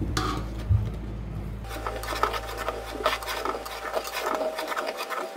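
Steel ladle stirring and scraping along the bottom of an aluminium pot of thick firni (milk-rice pudding), mixing in sugar. It goes as a dense run of quick rasping strokes from about two seconds in.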